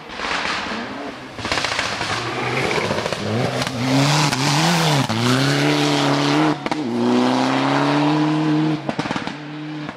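Rally car engine at high revs as the car comes through the bend close by and drives away, its note dipping and climbing sharply several times over a rush of tyre noise, then dropping off near the end.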